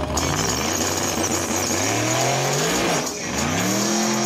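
Drag race car accelerating hard down the strip, its engine pitch climbing steadily, breaking off briefly about three seconds in, then climbing again and levelling off.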